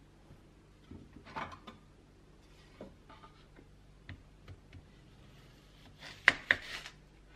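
Chef's knife cutting an onion on a wooden cutting board: scattered light taps and handling clicks, then two sharp knocks of the blade on the board near the end.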